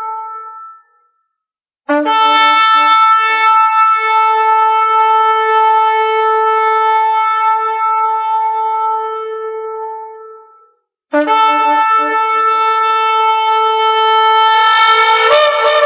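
Shofar blown in three blasts: one ending just under a second in, a long blast of about eight seconds that opens on a brief lower note, and a third starting about eleven seconds in that steps up in pitch and wavers near the end.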